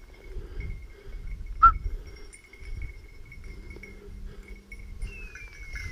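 Walking through dry scrub, with rustling and handling noise, faint thin bell-like tinkling, and one short sharp squeak about a second and a half in.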